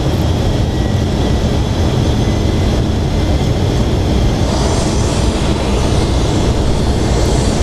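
Airbus A320 in flight on final approach, flaps just set to full: a steady rumble of engines and rushing air. A brighter hiss joins it about halfway through.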